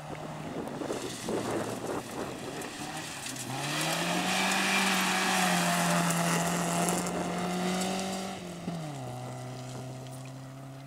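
Volvo rally car's engine at full throttle on a gravel stage, with tyres spraying gravel. The engine note climbs in pitch, holds at high revs where it is loudest, then drops sharply near the end as the car goes past.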